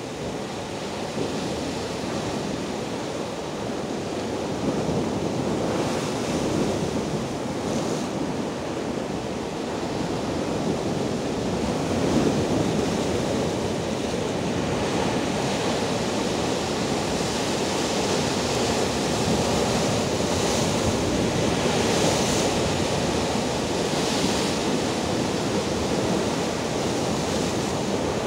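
Rough sea surf breaking over shore rocks: a continuous rushing wash of foaming water, with louder splashes every few seconds as waves hit the boulders.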